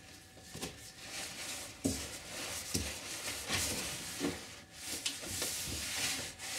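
A paper towel wiped back and forth over a wooden workbench top: a dry rubbing sound that swells with each stroke, with a few soft knocks.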